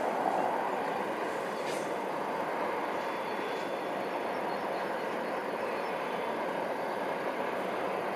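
Steady rushing background noise of distant traffic or rail, with a couple of faint high bird chirps about two and three and a half seconds in.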